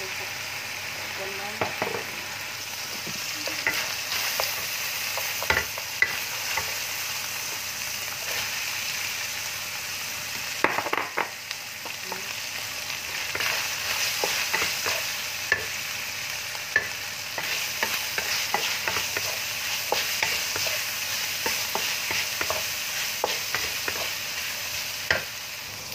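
Diced chicken and sliced okra sizzling in hot oil in a wok while a wooden spatula stirs, scraping and tapping against the pan. There is a cluster of louder knocks about eleven seconds in.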